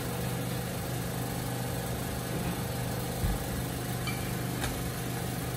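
Steady low hum of a kitchen fan, with spinach sizzling softly in oil in a frying pan; a light knock about three seconds in and a click a little later.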